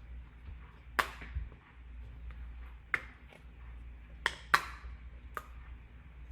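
Five short, sharp clicks or knocks at irregular intervals, the loudest a pair close together about four and a half seconds in, over a faint low hum.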